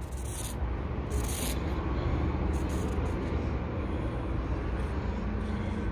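Felt-tip marker scratching over the rough sawn surface of a hard Douglas fir log in a series of short strokes, about one a second, over a steady low background rumble.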